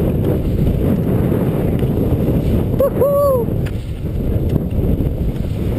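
Wind buffeting the action camera's microphone in a loud, gusty low rumble during a fast powder-ski descent, with one brief shout about three seconds in.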